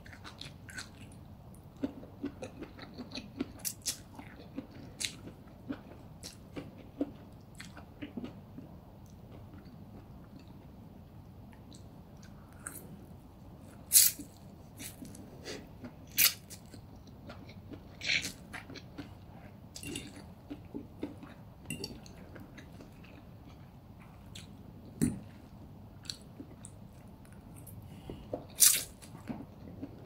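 Close-miked eating of crispy funchoza (glass noodles) with chicken: steady chewing with many small wet mouth clicks, and several louder sudden bursts, the loudest near the middle and near the end, as forkfuls of noodles are sucked into the mouth.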